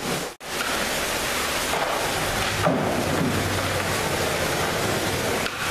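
Steady hiss of rain, broken by a brief dropout about half a second in.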